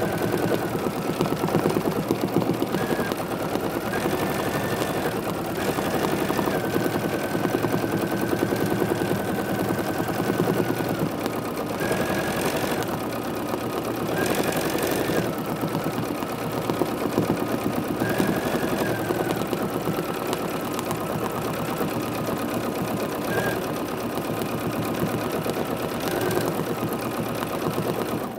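Bernina sewing machine free-motion quilting: the needle stitches fast and steadily over the motor's whine. Several times the whine steps up in pitch for a second or so as the machine speeds up, and the sound stops right at the end.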